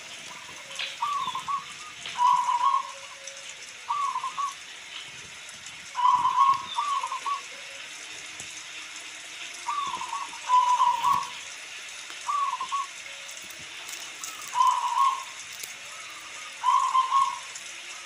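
Zebra dove (perkutut) calling: short bursts of quick, slurred cooing notes about every two seconds. Under them is a steady hiss of rain.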